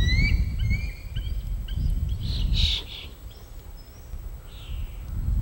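Small birds chirping and whistling in short rising notes, with a louder, harsher call about halfway through, over a gusty low rumble of wind on the microphone.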